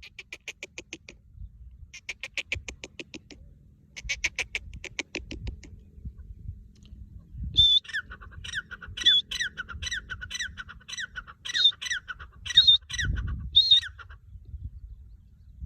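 Francolin (teetar) calling. It begins with three short bursts of rapid rattling chatter. Then comes a run of loud, shrill, repeated notes, about two a second, each sliding downward in pitch. A low thump falls near the end.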